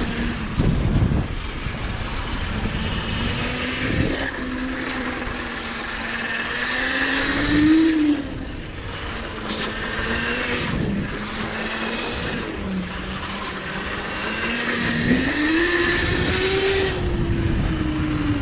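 Pit bike engine heard from on board during a lap, its pitch climbing and dropping several times as the throttle is opened and closed through the corners.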